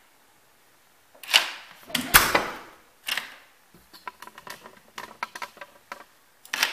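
Clicks and clunks of an electronic keypad deadbolt and its door: the thumb turn and bolt being worked and the door pushed shut, the loudest a heavy knock about two seconds in, then a run of small rapid clicks as the thumb turn is handled, and another clunk near the end.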